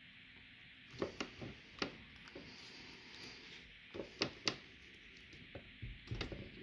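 A few soft knocks and taps as a metal soup can and a felt-tip marker are handled on a wooden tabletop. They come in small clusters: about a second in, around four seconds in, and near the end.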